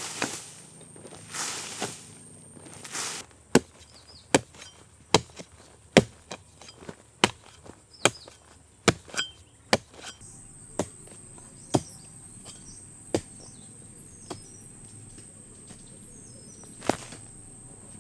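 A metal hand hoe chopping and scraping into dry, sandy soil. A few scraping sweeps come first, then a run of sharp chops, a bit more than one a second, which thin out to occasional strikes in the second half.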